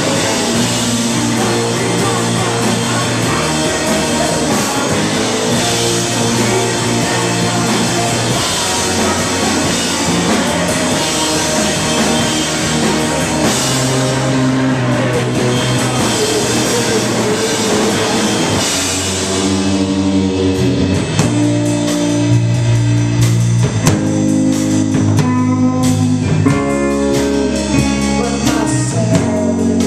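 Live rock band playing: electric guitar, bass guitar and drum kit, loud and full. About two-thirds through, the dense wash of sound thins out into clearer, separate guitar notes and chords over the drums.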